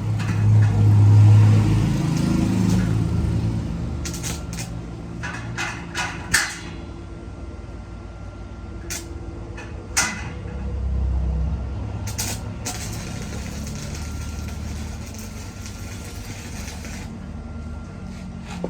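Metalworking sounds: a low hum, loudest in the first two seconds and again around eleven seconds, with a scatter of sharp knocks and clanks, two of them standing out near six and ten seconds.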